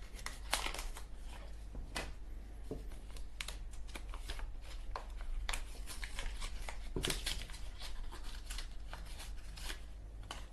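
A small package holding a replacement Zippo lighter wick being opened by hand: irregular rustling, crinkling and small clicks and tears, over a low steady hum.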